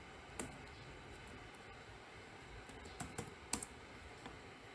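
A few faint computer keyboard keystrokes, one shortly after the start and a quick cluster of three about three seconds in, over a low background hiss.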